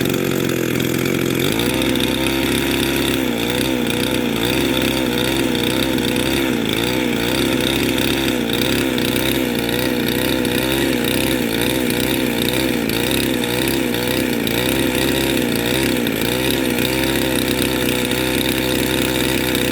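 McCulloch Double Eagle 50 two-stroke chainsaw running. About a second and a half in, the engine note picks up, then wavers up and down in pitch.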